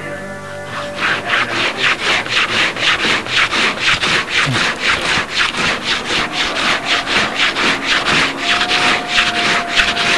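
A hand tool worked back and forth on wood in quick, even strokes, about three a second, starting about a second in and stopping at the end. Music plays faintly underneath.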